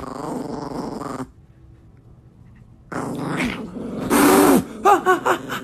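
Small black chihuahua-type dog play-growling, teeth bared, while rolled on its back and rubbed during rough play; the growl comes in two spells with a pause between. About four seconds in, a man lets out a loud cry, followed by short up-and-down vocal sounds.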